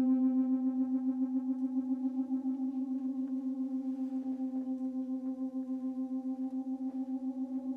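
A single held low note from the dance score's electronic music. It pulses fast and evenly, rings with steady overtones, and fades slowly.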